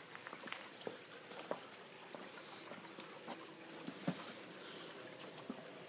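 Faint footsteps on a stone patio and scattered light clicks and knocks as a sliding glass door is taken by its handle and opened.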